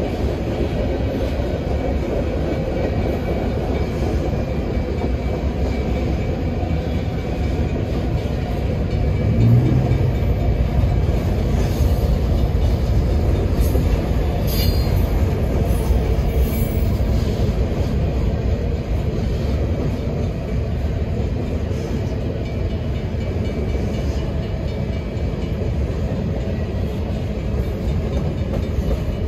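Freight train of covered grain hopper cars rolling past at steady speed: a continuous low rumble of steel wheels on rail, with a short, faint high-pitched wheel squeal around the middle.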